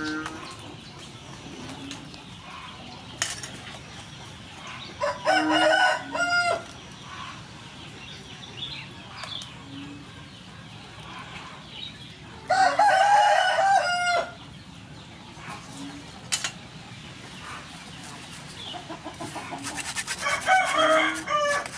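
A rooster crowing three times, each crow lasting about two seconds, over a steady background.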